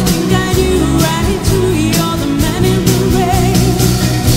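Live pop-rock band playing a song: a steady drum beat of about two hits a second under a sung melody with vibrato, electric guitar and keyboards.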